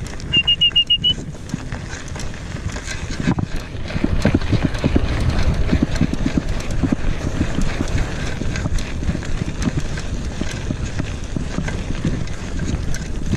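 Mountain bike climbing a rough dirt trail: dense irregular knocking and rumbling of tyres and frame over the ground, with wind on the microphone. A quick run of about six short high pips sounds near the start.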